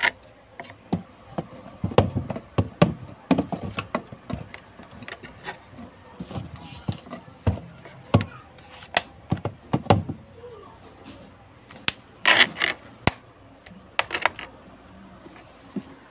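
Close handling noise: irregular clicks, knocks and plastic crackles as a plastic bottle is handled, with a few louder scraping bursts about twelve and fourteen seconds in.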